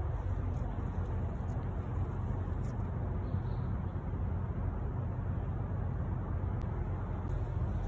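A steady low rumble with a fainter hiss above it.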